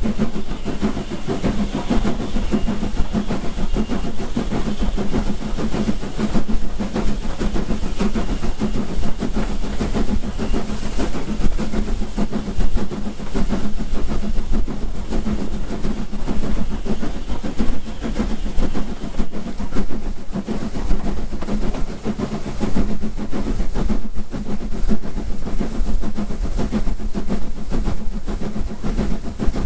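S15 class 4-6-0 steam locomotive No. 506 working hard up a steep gradient: a continuous chuffing exhaust beat mixed with the rumble and clatter of the train on the rails.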